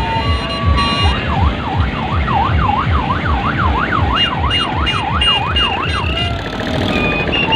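An electronic siren wails rapidly up and down, about two to three sweeps a second, for around five seconds before stopping. Underneath runs a loud, evenly spaced bass beat of music, with short steady beeping tones coming and going.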